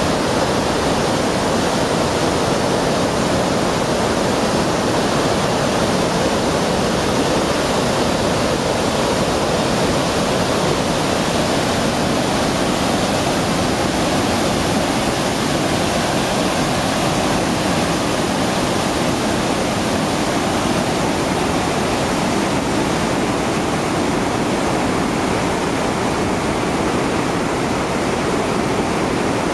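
Tännforsen waterfall: a large volume of water falling and crashing, a loud steady rushing roar.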